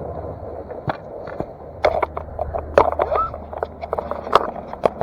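Irregular scraping and sharp knocks of hard objects on gravel and debris at a clogged street drain, a dozen or so scattered clicks over a low outdoor rumble.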